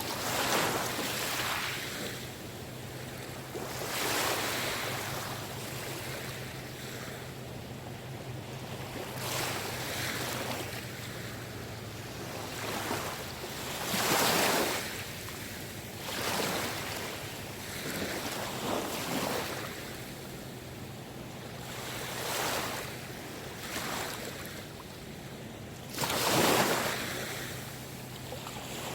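Small sea waves washing onto the shore, a rushing swell every few seconds and then falling back, the strongest about halfway through and near the end. A faint steady low hum runs underneath.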